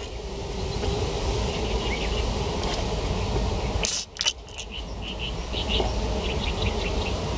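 Wind rumbling on the microphone, with scattered short high chirps. The sound breaks off with a sharp click about four seconds in, then builds back up.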